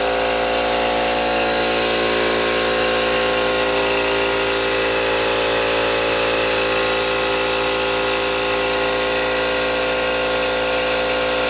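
Homemade double-acting steam engine built from scrap, running steadily at speed: a continuous even whir with several steady tones and no change in speed.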